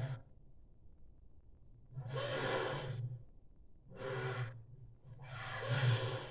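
Tarbosaurus sound effect: three heavy, breathy exhales or huffs, each about half a second to a second long, with a low rumble under the hiss.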